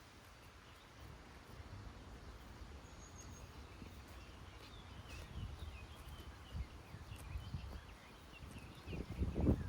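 Farmyard ambience: a steady low rumble with small birds chirping faintly in the background, and a cluster of thuds and rustling near the end.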